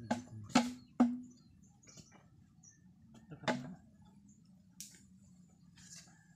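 Hollow knocks of cut bamboo tubes being handled and set down, each with a short low ring: three in the first second and another about three and a half seconds in.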